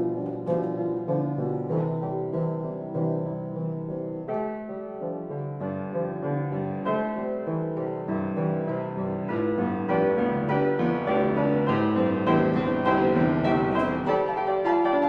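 Background piano music in a classical style, growing slightly louder about two-thirds of the way through.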